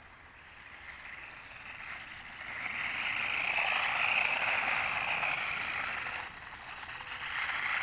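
Feng Niu FN668 flying-car quadcopter driving on asphalt at its high driving rate, its small electric motors whirring. The whir is faint at first, grows louder a couple of seconds in as the toy comes close, drops briefly near the end, and then rises again.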